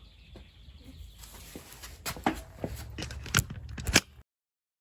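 Several sharp clicks and knocks of things being handled, over a light background noise, then the sound cuts off to dead silence a little past four seconds in.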